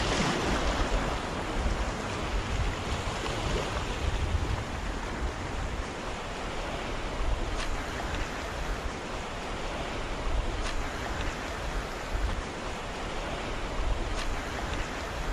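Sea surf washing and swirling over seaweed-covered shore rocks, a steady rushing hiss that swells in the first second.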